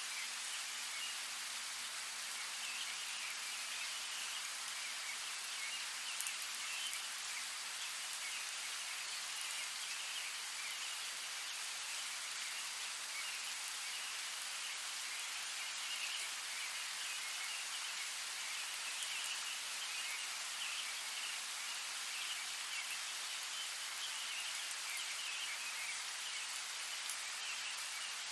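Steady rain falling, an even hiss, with a faint high chirring flickering underneath it.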